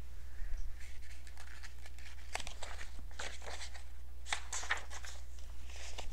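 Pages of a picture book being handled and turned: a run of scattered paper rustles and soft crackles, over a low steady hum.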